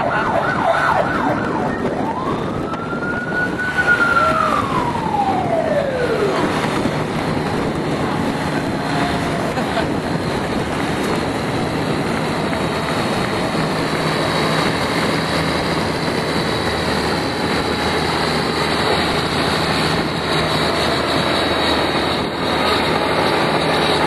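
Emergency vehicle siren: a rapid yelp, then a single long wail that climbs and slides back down, dying out about six seconds in. After that, a steady din of parade vehicle engines and crowd, with a thin high tone from about halfway on.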